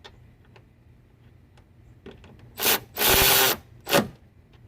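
Milwaukee M12 Fuel high-speed cordless ratchet running in three short trigger pulls, the middle one about half a second long, after a few light handling clicks.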